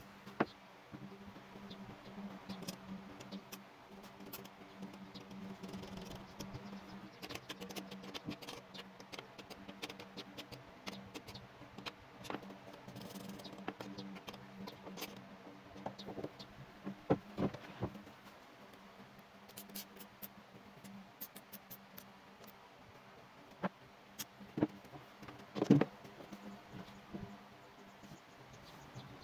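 Scattered light clicks, taps and a few sharper knocks of hand work on workshop parts, over a faint steady low hum.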